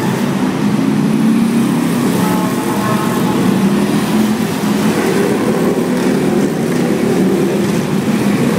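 Police cars and police motorcycles driving past in slow succession, their engines making a steady low hum that drifts a little in pitch.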